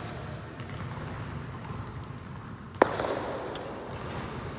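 A single sharp knock a little under three seconds in, echoing in a large room, followed by a few faint ticks.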